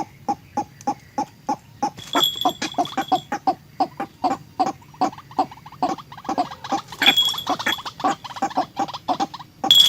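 Waterhen calling: a short clucking note repeated about three times a second, growing denser and overlapping after about two seconds. A steady high-pitched whine sounds over it from about two seconds in and again from about seven seconds in.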